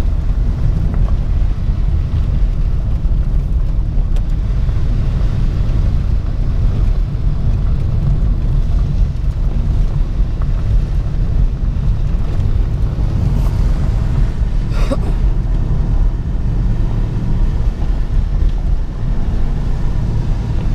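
Steady low rumble of a car driving on a rain-soaked road, heard from inside the cabin: engine and tyre noise with the hiss of wet pavement.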